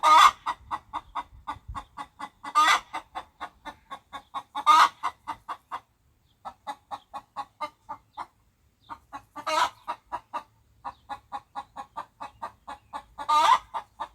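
Chicken clucking in a rapid, even run of short clucks, about four or five a second, with louder drawn-out squawks breaking in five times, every two to four seconds; the clucking stops briefly twice near the middle.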